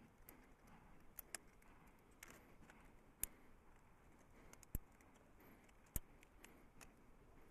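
Scattered small, sharp clicks and taps of small metal knife parts and tools being handled during a knife repair, about eight in all, with quiet room tone between them.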